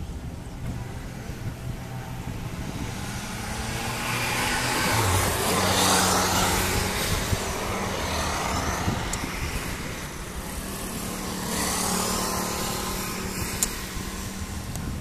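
Cessna U206G Stationair's six-cylinder piston engine and propeller at full takeoff power during the takeoff roll, lift-off and climb-out. The sound grows louder to a peak about six seconds in, eases off, then swells again a little later.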